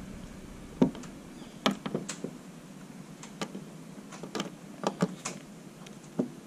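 About a dozen light clicks and taps at irregular intervals, as a screw on a cordless drill's bit and a plastic camera mount are knocked and shifted against a bus's sheet-metal side while the screw is being lined up; the drill motor is not running.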